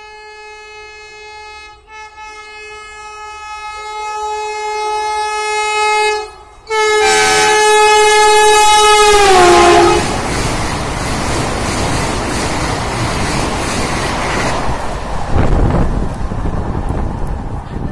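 Vande Bharat Express train sounding its horn. A long steady blast with a brief break grows louder, then after a short pause a very loud blast falls in pitch about nine seconds in. The rushing, rumbling noise of the train running at speed follows.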